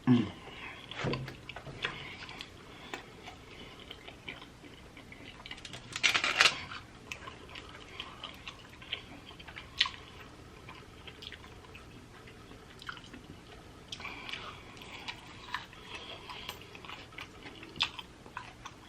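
Close-miked chewing and mouth sounds of someone eating pizza: scattered wet clicks, with a louder crunchy burst about six seconds in.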